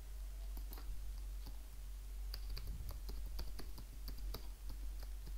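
Typing on a computer keyboard: irregular key clicks, several a second, over a low steady hum.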